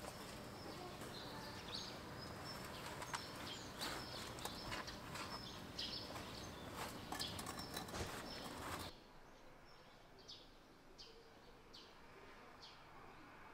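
Potting soil being scooped and worked into a large terracotta pot with a small metal scoop and gloved hands: rustling and scraping with many small clicks. About nine seconds in it cuts to a quieter garden background with a bird chirping again and again.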